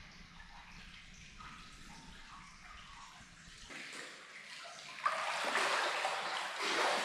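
Hot-spring bath water, faint at first, then sloshing and splashing loudly from about five seconds in.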